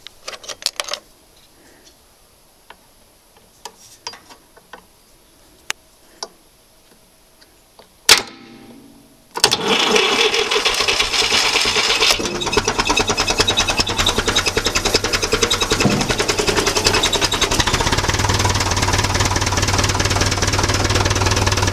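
Scattered clicks and knocks, then a loud clunk about eight seconds in as the 1954 Fordson Major tractor's four-cylinder engine is cranked by the starter. It catches after about a second and runs steadily, settling to an idle.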